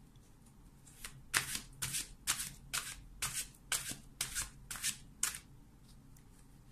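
A deck of angel oracle cards shuffled hand over hand. There are about fifteen quick, sharp strokes at three or four a second, stopping about five seconds in.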